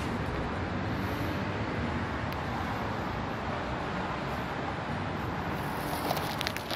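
Steady roar of street traffic, with a few light clicks near the end.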